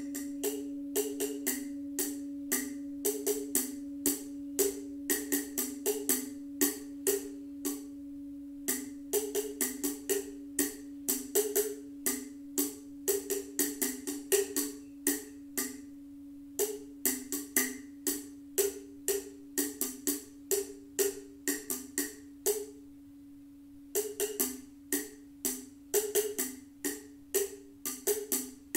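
A Himalayan singing bowl rings on in a steady hum beneath quick, irregular strokes of small hand percussion. The strokes come in clusters with short breaks around 8, 16 and 22 seconds in.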